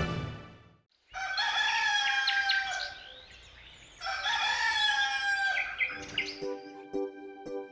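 A rooster crowing twice, each crow about two seconds long. Piano music comes in near the end.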